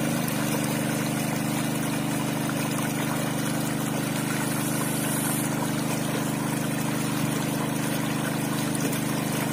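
Honda WB30X water pump's engine running steadily at constant speed, with water gushing from the end of its lay-flat discharge hose at a full, strong flow.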